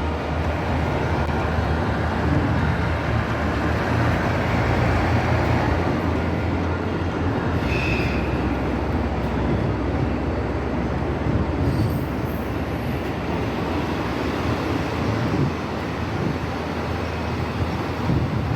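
Train running on the rails with a steady noise of wheels and machinery, and a brief high squeal about eight seconds in.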